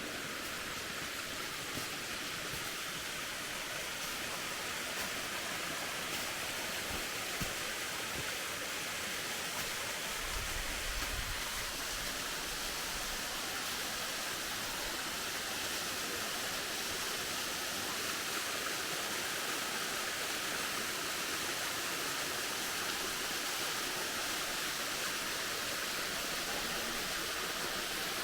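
Steady rush of running and falling mountain water, an even hiss with little low end and no change throughout.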